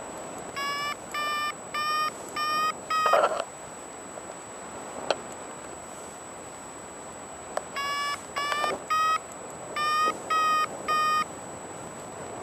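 Paragliding variometer beeping about twice a second in runs, the beeps stepping up slightly in pitch, the sign of the glider climbing in lift; it falls silent for about four seconds in the middle. Faint wind rush underneath and a single sharp click about five seconds in.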